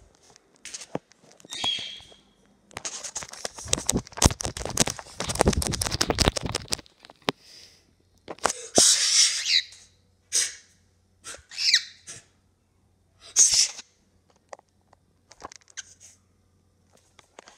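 A pet parrot in a wire cage giving loud, shrill squawks and screeches, several short calls with the longest and loudest a little past the middle. About three to seven seconds in there is a stretch of knocks and rumbling handling noise.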